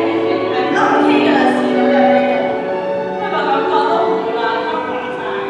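Classical vocal music in an operatic style: a singing voice holding long, sustained notes over accompaniment, played through a church's sound system during a speaker test.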